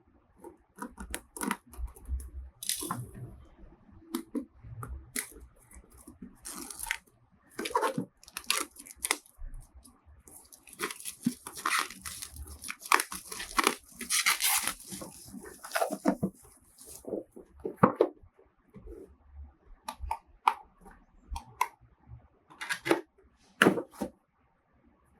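Packaging of a security camera being handled and unwrapped: scattered clicks and knocks, with a stretch of crinkling and tearing in the middle lasting about six seconds.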